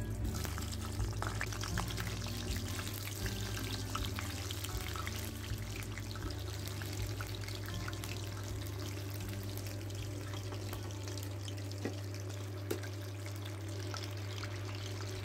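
Foil-wrapped chicken kebabs deep-frying in hot oil: a steady sizzle with frequent small crackles and pops, over a steady low hum.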